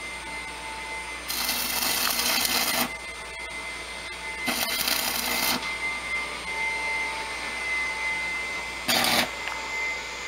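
Arc welding on steel rebar: the stick welder's arc crackles and hisses in three bursts, about a second and a half, then about a second, then a brief one near the end, as joints in the rebar frame are welded.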